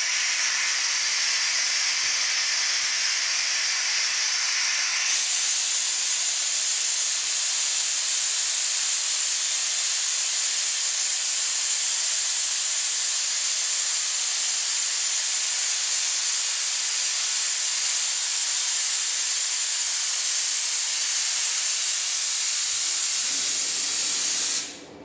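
Compressed air from a newly installed ABAC screw compressor's system being drained off in a loud, steady hiss. It is a little brighter for the first five seconds, then cuts off suddenly near the end.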